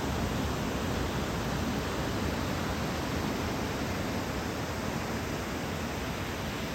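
Steady roar of breaking surf from a typhoon-driven swell: a continuous rushing noise with no distinct single wave crashes, easing off slightly toward the end.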